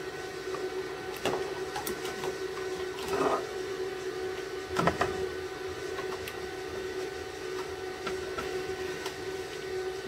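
A steady electric hum with a few light knocks and clicks from hands working in the engine bay, the two loudest about three and five seconds in.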